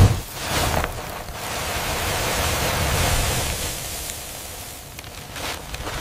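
Battered nuggets dropping into a bed of breadcrumbs with a low thump, then a rushing hiss of crumbs pouring over them that swells and dies away over a few seconds.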